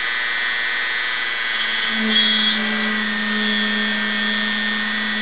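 Dremel rotary tool running steadily with a number 60 micro drill bit, drilling a tiny hole into a brass burner fitting: a high whine, with a lower hum joining about two seconds in.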